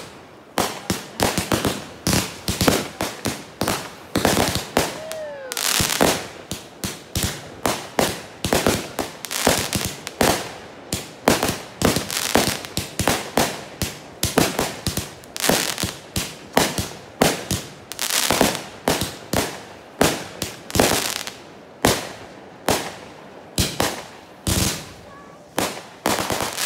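Aerial fireworks going off in a rapid barrage: sharp bangs and crackling bursts about two a second, without a break.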